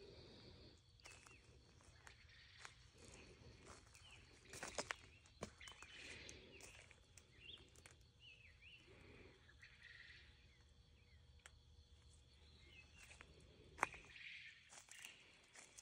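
Faint evening outdoor ambience: birds chirping in short sweeping calls over a steady high-pitched drone, with footsteps on wood-chip mulch and a few sharp clicks, the loudest about five and fourteen seconds in.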